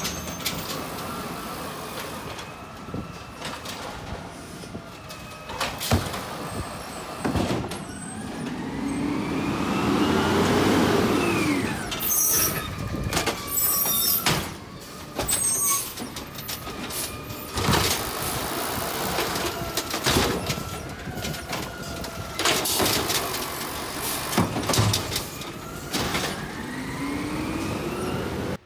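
Automated side-loader garbage truck working a row of carts: the engine revs up and falls back several times to drive the hydraulic arm, with sharp bangs of carts being handled and dumped, and hisses of the air brakes.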